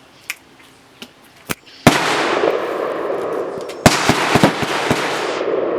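Two 20-gauge shotgun blasts, Weatherby shotgun firing slugs, about two seconds apart, each followed by a long noisy rumble that lasts a couple of seconds. A few light clicks come before the first shot, and several sharp cracks follow the second.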